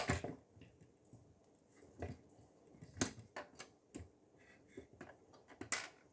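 Plastic Lego bricks and parts clicking and knocking as they are handled and pressed together, a handful of separate sharp clicks spread over several seconds, the sharpest right at the start.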